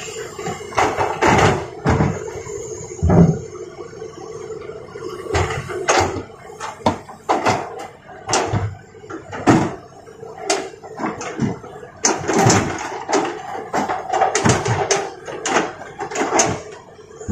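Toy excavator loading rocks into a toy dump truck: irregular knocks and clatters of stones against plastic, over a faint steady hum.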